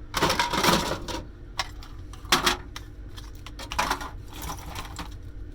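Small plastic and metal parts of an electronic cash register rattling and clattering as they are handled and pulled apart, in several short bursts: a longer one at the start, then two brief ones.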